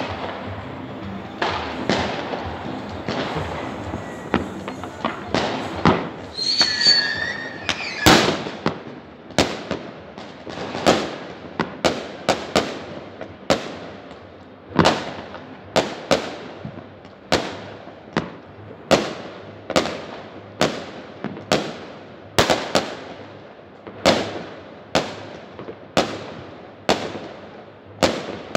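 Fireworks going off across a city: a steady run of sharp bangs, about one or two a second, each followed by an echo. About seven seconds in there is a short whistling glide.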